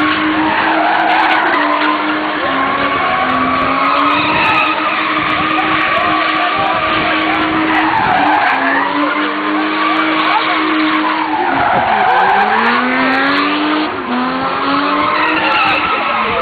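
BMW E30 325i's inline-six running at high revs, its pitch swinging up and down again and again, while the rear tyres squeal nonstop as the car slides in a long skid.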